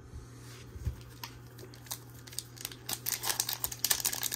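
Foil wrapper of a Lorcana booster pack crinkling in the hands as it is gripped to be torn open: a few light clicks at first, then a denser run of crackling from about three seconds in.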